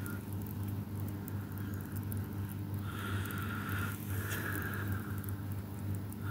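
Faint scattered crackling of frog tadpoles gulping air at the water surface, over a steady low hum.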